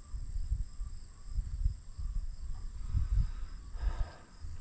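Wind gusting on the microphone, with a steady high insect drone of crickets behind it and a brief rustle near the end.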